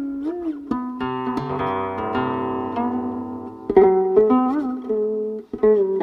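The Tang-dynasty guqin 'Jiuxiao Huanpei' played solo, its silk strings plucked. Single notes slide and waver in pitch after they are struck, and from about a second in a quick run of notes rings on over itself.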